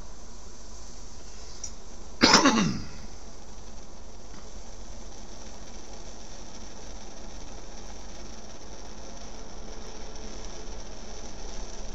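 Primus No.71 camp stove's burner catching from its priming flame: a sudden loud sound about two seconds in that falls quickly in pitch, then the burner's steady hiss slowly building toward the end as it comes up to heat.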